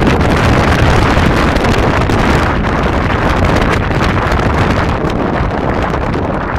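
Steady wind rushing over the microphone of a camera on the roof of a moving car, with road noise beneath.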